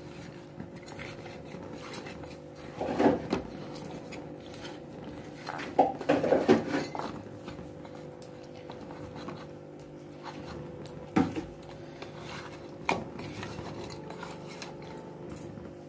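A hand mixing small whole shorputi fish with turmeric and salt in a stainless steel bowl, with a few sharp clinks and clatters of fish and fingers against the bowl, a cluster of them a third of the way in. A steady low hum runs underneath.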